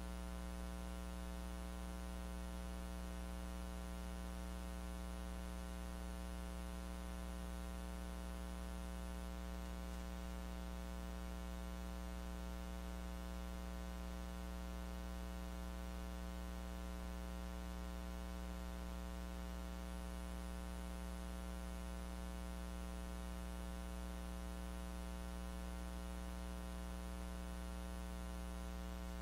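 Steady electrical mains hum with its stack of overtones over a faint hiss. It is all the audio track holds, because the lecture's sound was not recorded.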